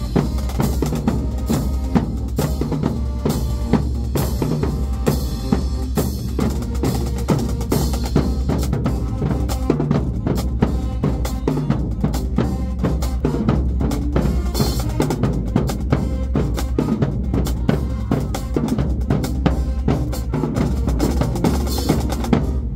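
Marching band drumline playing a dense, driving beat on bass drums and snare drums.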